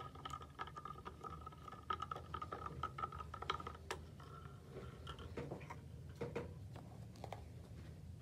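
A spoon stirring alum powder into hot water in a glass jar, with scattered light clinks and scrapes against the glass. A faint steady high tone fades out about three and a half seconds in.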